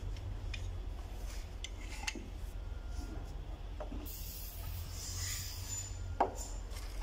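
Small metal parts being handled by hand: scattered light clicks and clinks, the sharpest near the end, with a soft hiss lasting about two seconds midway, over a steady low hum.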